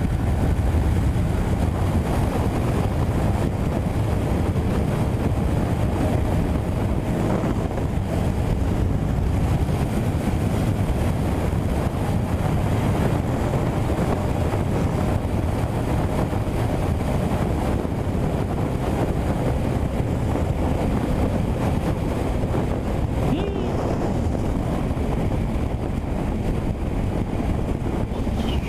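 Wind rushing over the microphone on a Yamaha MT-07 at highway speed, with the bike's parallel-twin engine running underneath as it slows.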